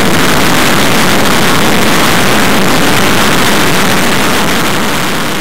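Rolls-Royce EJ200 jet engine running in reheat (afterburner): a loud, steady roar that begins to fade near the end.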